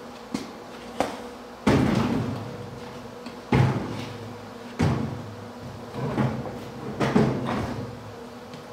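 Clunks and knocks of a tool case being set down and handled against a cabinet: about seven knocks spaced roughly a second apart, the loudest about a second and a half in, each dying away quickly, over a faint steady hum.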